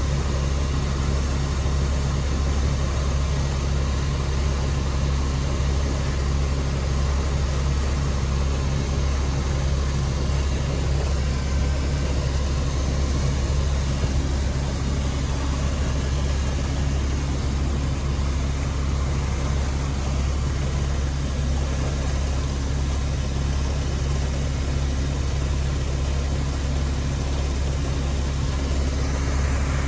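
A sailboat's engine running steadily, a constant low drone.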